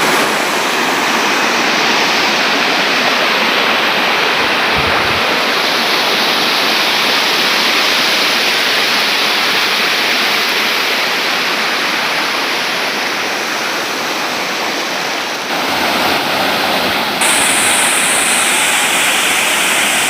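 Waterfall: a steady, loud rush of falling water, its sound shifting abruptly about 15 and 17 seconds in.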